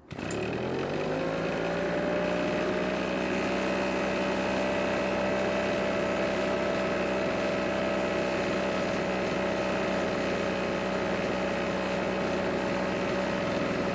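Husqvarna backpack leaf blower's small two-stroke engine running, its speed climbing over the first second or so and then holding steady. It runs on fresh gas, the no-start having been caused by old, water-contaminated fuel.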